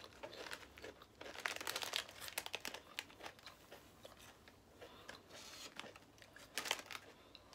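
Potato chips being crunched and chewed, mixed with the crinkling of a plastic chip bag as it is handled. The crackles come irregularly, thickest in the first few seconds and again near the end.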